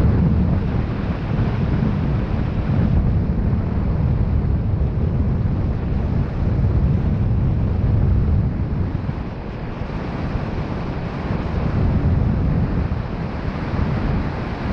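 Wind buffeting the microphone: a loud, gusting rumble of rushing air with no distinct tones.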